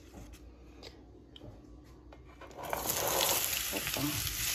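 A few faint clicks, then, nearly three seconds in, a sudden sizzle of hot frying oil that keeps going, as sliced carrots, bell pepper and onion slide off a plastic cutting board into the pan.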